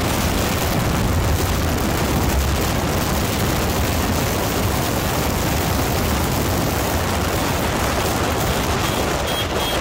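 Heavy wind buffeting on the microphone of a sport motorcycle at highway speed, a steady rushing roar that covers the engine.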